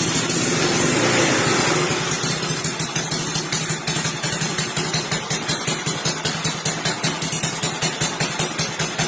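Yamaha Nouvo scooter's single-cylinder engine running, revved for about the first two seconds and then settling back to idle with a regular pulsing, as the bike is test-run after its CVT has been reassembled.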